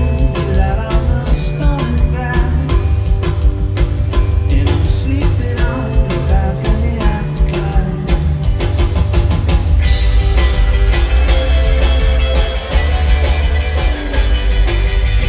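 Live indie rock band playing, with drums, bass and a hollow-body electric guitar, and a sung melody over the first half. From about ten seconds in the guitar part gets busier and brighter.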